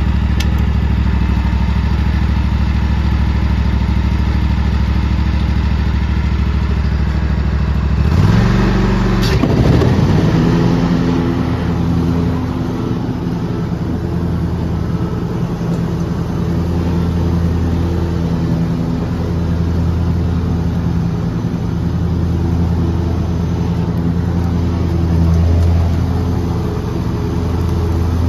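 Riding lawn mower's engine running steadily. About eight seconds in there is a short rush of noise and the engine note changes, then it runs on with a slightly wavering note while the mower moves across the grass.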